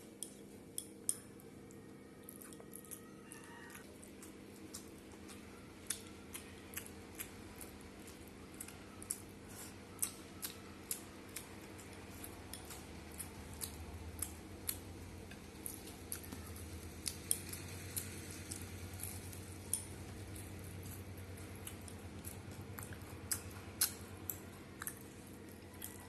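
A person eating rice and curry close to the microphone: chewing with irregular sharp clicks and snaps, one to three a second, over a steady low hum.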